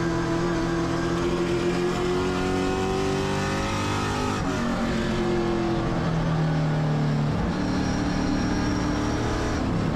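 Race car engine running hard at high revs, its pitch climbing, then dipping sharply about four seconds in and building again.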